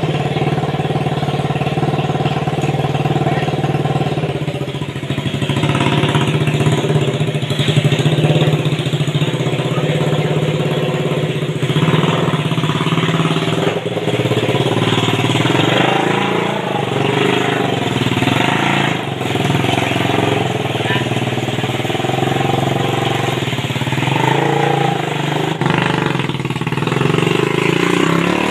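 Homemade mini buggy's motorcycle engine running continuously, its pitch and loudness rising and falling a little as the throttle changes.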